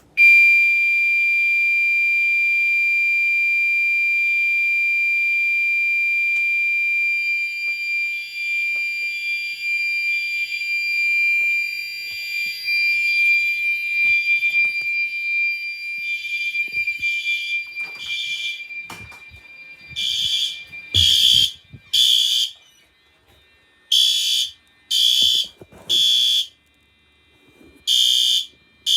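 Fire alarm being tested: a loud, high-pitched tone comes on suddenly and holds steady, starts to waver and pulse after several seconds, then from about twenty seconds in sounds as short beeps in groups of three, the standard temporal-three fire evacuation signal.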